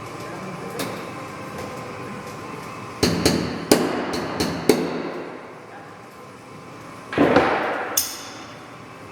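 Sharp metal taps and knocks, about six in under two seconds, then a short noisy burst ending in a click, from tools working out a crooked pulled rivet that is being drilled out of the aluminium wing skin.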